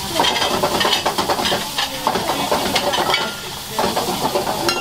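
Food sizzling in a frying pan over high heat while a metal utensil stirs it, with many quick clinks and scrapes against the pan.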